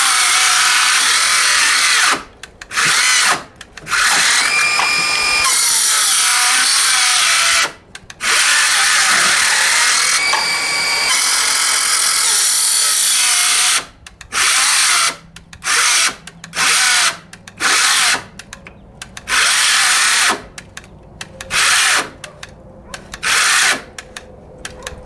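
DeWalt 12V XTREME brushless 5-3/8-inch circular saw making several long cross-cuts in 2x4s, its motor whine dropping as the blade bites. For the last ten seconds or so it runs only in about ten short spurts, starting and stopping as the nearly flat knockoff battery cuts out.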